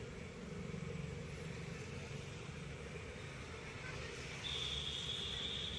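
Road traffic running steadily, with a high, steady tone coming in about four and a half seconds in and holding for about two seconds.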